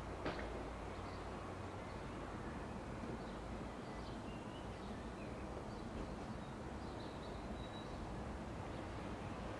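Low, steady rumble of an approaching Class 66 diesel-electric freight locomotive, with birds chirping over it. A single sharp click comes just after the start.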